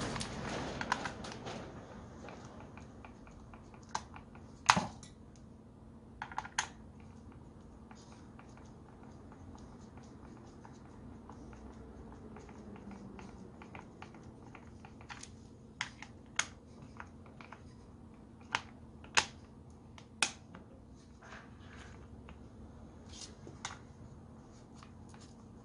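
Scattered sharp clicks and taps of a screwdriver, wires and small parts against a plastic drill housing during a power-cord replacement on a corded electric drill. The loudest knocks come about five seconds in and again around nineteen seconds in.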